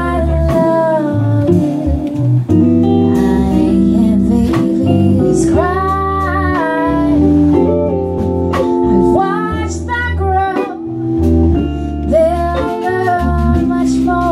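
Live band music: a woman singing over keyboard, guitar and drums.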